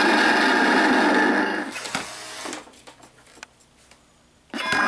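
Gemmy Dead Eye Drake animated pirate prop playing its sound clip loudly through its small speaker while it moves. About two seconds in the sound fades out, leaving only a few faint mechanical clicks. Just before the end it starts up loudly again.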